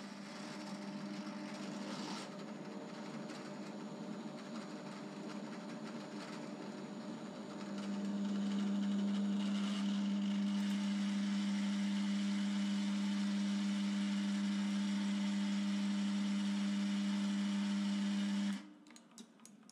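BL250D bench lathe running during a thread-cutting pass, a steady motor hum with gear whine. The hum grows louder about eight seconds in, then stops abruptly near the end as the lathe is switched off.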